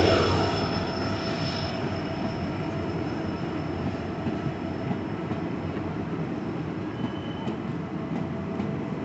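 Passenger train rolling past at low speed: a steady rumble of coaches on the track with a faint wheel squeal, fading in the first couple of seconds as the diesel locomotive draws away. A few light clanks come in the second half.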